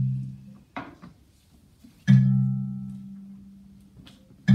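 Low plucked string notes played as live accompaniment, struck about two seconds apart, each ringing and fading slowly, with a short knock about a second in.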